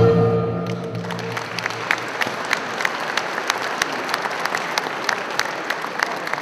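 Folk dance music ends on a held final chord about a second in. An audience takes over with sustained applause in a large, echoing hall, with individual claps standing out.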